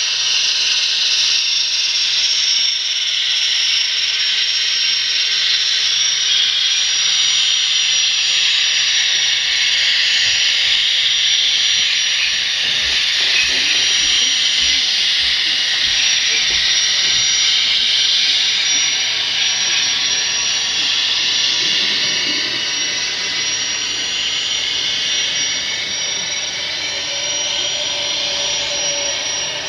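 Sound-equipped HO-scale model of the Union Pacific 8500-class gas-turbine locomotive giving out its turbine sound: a steady, loud jet-like rushing hiss with a thin high whistle over it, easing slightly after about twenty seconds as the locomotive moves on.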